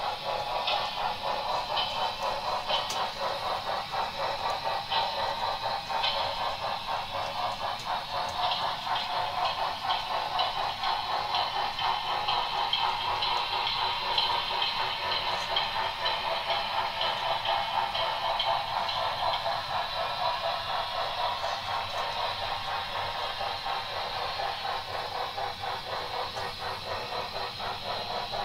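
HO scale model freight train rolling along the track: a steady rattling clatter of small metal wheels on rail, with a faint high whine that comes and goes in the middle stretch.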